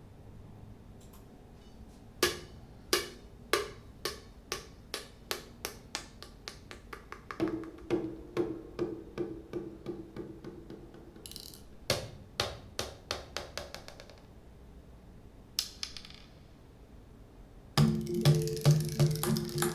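Music played through Edifier R1700BT powered bookshelf speakers: a track opening with a run of sharp, woodblock-like percussive clicks, joined by a held low note. After a brief lull near the end, fuller, denser music with bass comes in.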